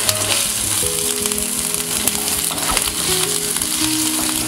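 Chopped garlic and grated ginger sizzling in hot oil in a nonstick pan, stirred with a wooden spatula with a few light scrapes. Background music with held notes plays along.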